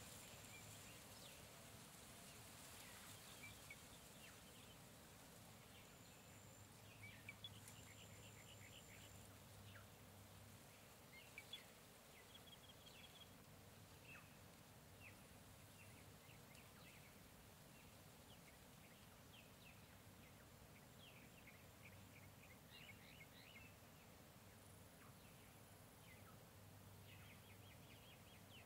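Faint jungle ambience: birds chirping and calling on and off throughout in short runs of quick chirps, with a thin high steady tone a few times in the first ten seconds.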